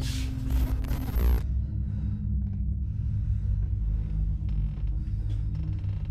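Horror-film soundtrack: a short hissing burst of noise in the first second and a half, then a steady low rumble with faint creaks.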